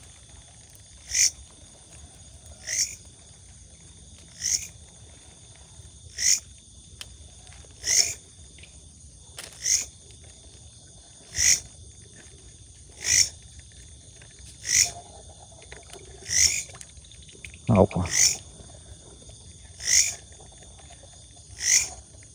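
An animal's short call repeating steadily, about once every 1.7 seconds, over a continuous high insect chirring. About three-quarters of the way through there is a single dull thump.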